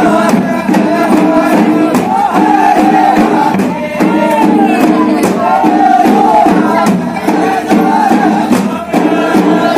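A group of villagers singing Adivasi Bhil Holi songs together, with dhol drums beaten in a steady rhythm underneath.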